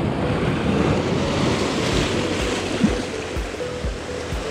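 Sea surf surging and washing over the rocks of a rocky shoreline, a steady rush of water, with one short sharp knock just under three seconds in.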